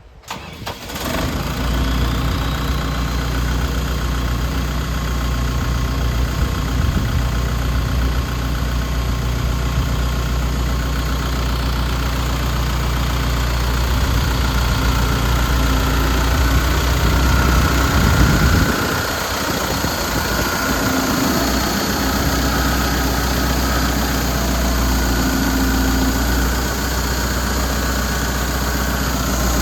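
The Deutz BF4M2012 four-cylinder diesel engine of a 2005 Putzmeister TK70 trailer concrete pump starts up in the first second and then runs steadily. About two-thirds of the way in, the low rumble briefly drops and shifts before settling again.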